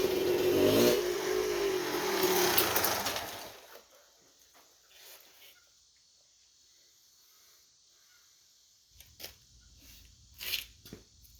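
1987 Kawasaki KX250 two-stroke engine running, with a short rise in revs about a second in, then stopping abruptly about three and a half seconds in. With the reed block now the right way up it runs, though still rich by the owner's account.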